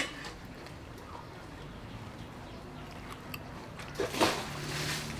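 Eating crisp fried food: a crunchy bite at the start, quieter chewing, then a louder crunching bite about four seconds in followed by about a second of crunching.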